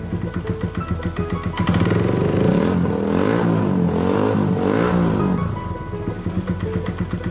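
Suzuki Thunder 125 single-cylinder four-stroke engine running, with the engine speed rising and falling a few times in the middle as it is revved. The owner takes its rough internal noise for a worn connecting rod and loose piston.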